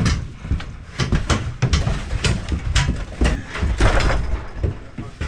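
Heavy equipment being pushed up a ramp: repeated knocks and clatter over a low rumble.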